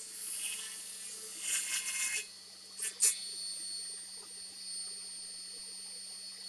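Table saw running with a steady high whine while an oak board is fed across the blade, with cutting noise over the first two seconds. A sharp knock comes about three seconds in, then the saw spins on without load.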